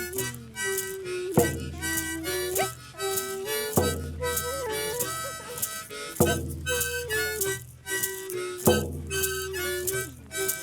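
Music: a slow melody of held, reedy notes over a deep low beat that falls about every two and a half seconds.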